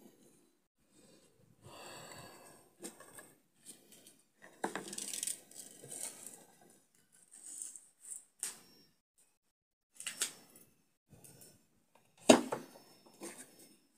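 Dry tingui seed-pod pieces being handled and fitted together: irregular rustling and scraping with light clicks, and one sharp knock near the end.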